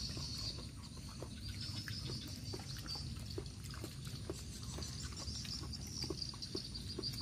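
Outdoor forest-edge ambience: insects keep up a steady high chirring over a low steady rumble, with scattered faint ticks.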